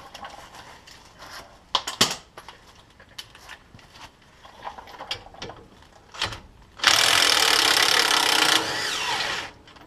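Light clicks and knocks of a socket being fitted onto a brake caliper bolt, then, about seven seconds in, a drill runs loudly for about two and a half seconds, spinning the loosened bolt out, and winds down with a falling whine.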